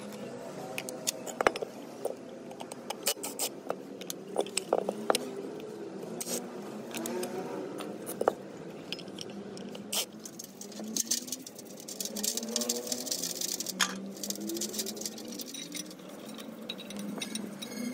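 Hand tools clicking, tapping and scraping on an old drill press's electric motor and cast-iron parts as they are taken apart and worked on. There are many short, sharp clicks, with faint gliding tones in the background.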